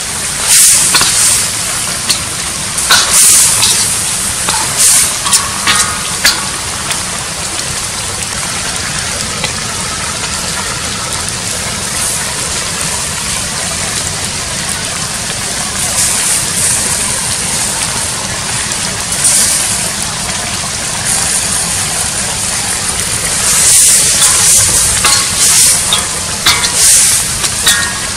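Snake meat and bamboo shoots sizzling steadily in a metal wok, with a spatula stirring and scraping against the pan in the first few seconds and again through the last dozen seconds.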